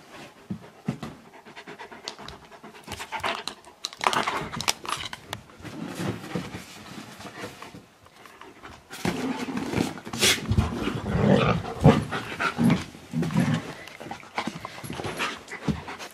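Wolf hybrid dog panting, louder from about nine seconds in.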